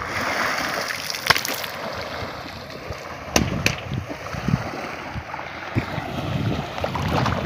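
Shallow floodwater splashing and sloshing as men wade through it and beat it with long bamboo poles, driving fish toward bamboo-fence traps, with low thuds and a few sharp clicks.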